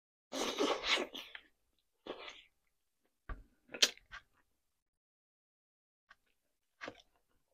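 Close-miked eating mouth sounds: a noisy sucking slurp about a second long as fingers are licked clean, a shorter one after it, then several short sharp smacks and clicks.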